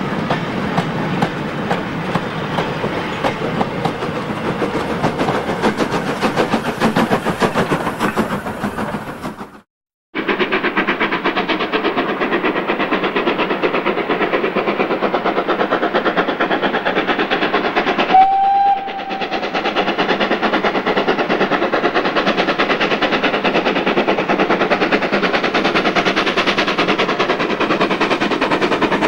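A steam-hauled goods train passing, its wagons rumbling and clacking over the rail joints; after a sudden cut, a steam tank locomotive working hard up a gradient with rapid exhaust beats, giving one short whistle about halfway through.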